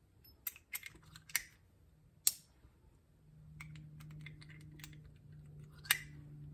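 Light metallic clicks of a Colt-style single-action revolver being loaded at half cock: the cylinder is turned by hand chamber by chamber and fired brass cases are slid in through the loading gate. There are several sharp clicks, a run of fainter ticks in the middle and one louder click near the end, with a low steady hum coming in about three seconds in.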